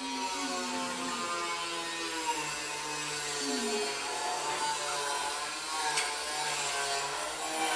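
A woman humming a slow, wordless tune in held notes that glide from one to the next.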